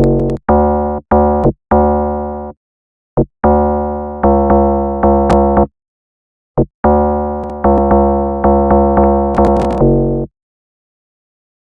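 Synthesizer and keyboard sample previews played one after another: pitched note and chord hits with deep low end, each struck sharply and fading fast. Runs of repeated hits about half a second apart are broken by short silent gaps.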